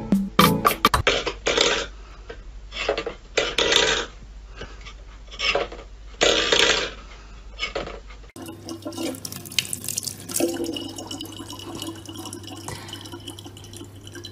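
A cat pawing a stainless steel bowl, which scrapes on a wooden floor in several short bursts. About eight seconds in this gives way to a thin stream of water running steadily from a tap into a plastic water bottle.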